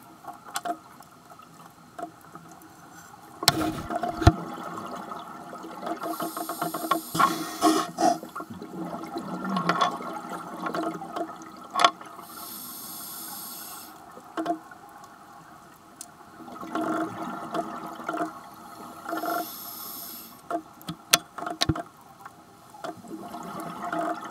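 Scuba diver breathing through a regulator underwater: a hissing inhalation about every six or seven seconds, each followed by a long rush of exhaled bubbles. A few sharp knocks are heard in between.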